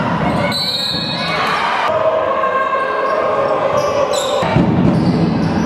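Indoor basketball game sound: the ball bouncing on the court while players move and call out.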